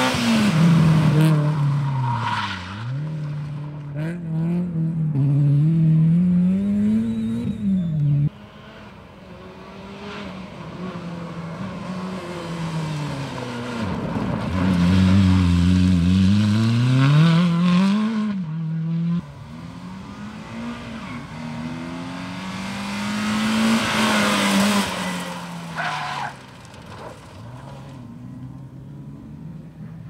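Rally cars passing one after another at full throttle, the engines revving up and dropping back through gear changes and lifts, with tyre squeal and gravel spraying. A Toyota Corolla rally car slides past around the middle, and a BMW E30 rally car near the end; the sound changes abruptly between runs about eight and nineteen seconds in.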